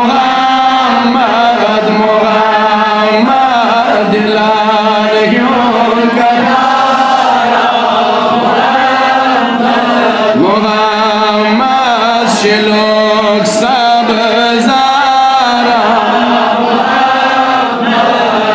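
Male voice singing a Kashmiri naat in a slow, melodic chant, amplified through microphones, with long held and bending notes.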